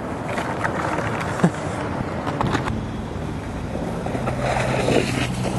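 Snowskate deck sliding and scraping over packed snow and ice, with a few sharp knocks, the loudest about one and a half seconds in. A steady low hum joins about two-thirds of the way through.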